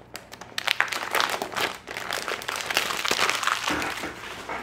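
Crackling and crinkling of cellophane shrink-wrap being peeled off a phone box and scrunched in the hands.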